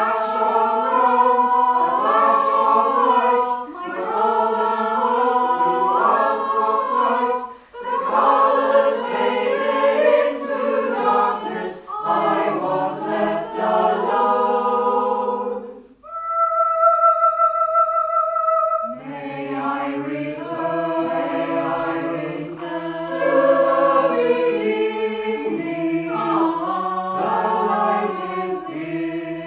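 Mixed choir singing a cappella. About sixteen seconds in the singing stops and a single steady note sounds alone for about three seconds before the voices come back in.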